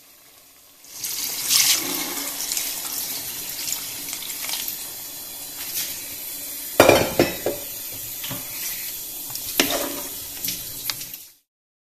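Water poured into an aluminium pressure cooker of chicken and rice for biryani, a steady splashing that starts about a second in. A few sharp metal clinks against the pot, the loudest about seven seconds in, and the sound stops abruptly near the end.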